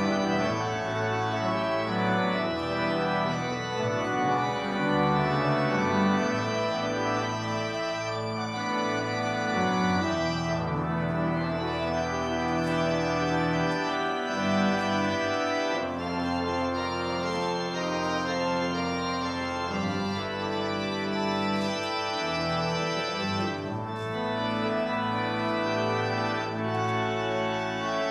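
Organ playing a slow piece of full sustained chords that change every second or two.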